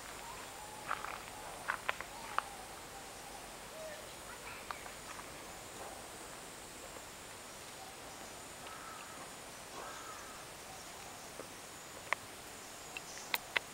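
Tropical rainforest ambience: a steady high insect drone, with scattered sharp clicks and a few faint short calls.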